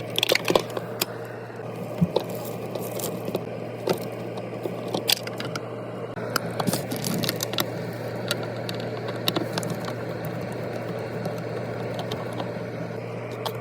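Scattered clicks, knocks and scrapes of screws being taken out and a plastic ice maker being worked loose inside a freezer, busiest in the first few seconds. A steady low hum runs underneath.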